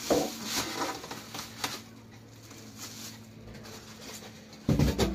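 Thin plastic bag crinkling and rustling as it is gripped and pulled over a PC cabinet, busiest in the first second, then quieter. A louder burst of sound starts suddenly just before the end.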